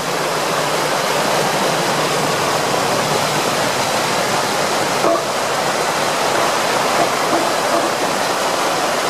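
Muddy stormwater rushing steadily along the curb and street, overflowing from a backed-up storm drain during a heavy rainstorm.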